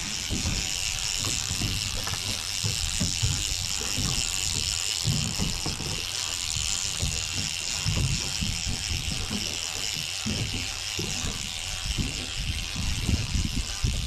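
Wind buffeting the microphone in uneven gusts over open sea, with a steady high hiss throughout.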